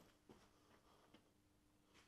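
Near silence: faint room tone with a low hum and a few faint short clicks.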